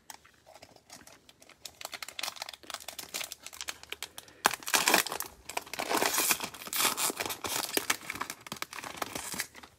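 Crinkling and tearing of a cellophane trading-card pack wrapper being ripped open and handled: a dense crackle that starts about a second in and grows louder about halfway through.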